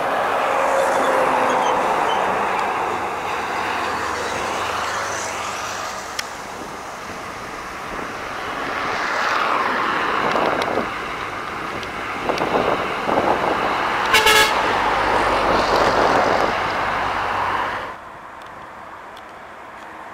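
Loaded grain trucks passing on a highway, engine and tyre noise swelling and fading as each goes by. A short horn toot sounds about two-thirds of the way through, and the traffic noise drops away suddenly near the end.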